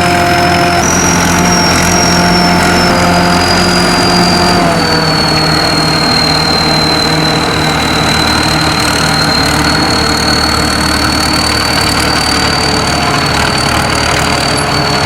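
SAKPATTANA SS-200 mini combine harvester running steadily, with a high whine from its drive that steps down in pitch a couple of times.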